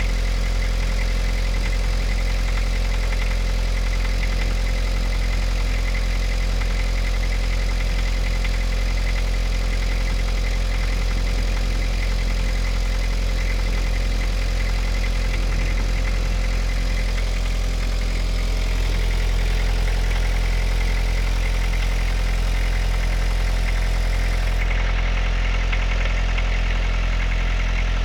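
Toyota 2C 2.0-litre four-cylinder diesel engine idling steadily. This is a cold idle with a knock that is heard only before warm-up and that the owner cannot place.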